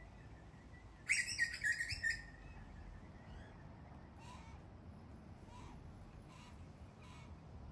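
Australian magpie giving one loud, short pitched call lasting about a second, starting about a second in. Fainter short bird calls follow, repeating about once a second in the background.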